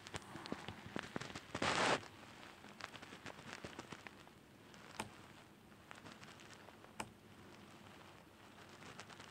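Scattered light clicks from operating a laptop's keys and mouse, with a brief rustling burst about one and a half seconds in and two sharper single clicks later on.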